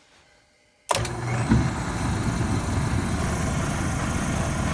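Waste oil furnace burner starting up: silence, then an abrupt loud start about a second in with a second jolt half a second later, settling into a steady rumbling run with hiss.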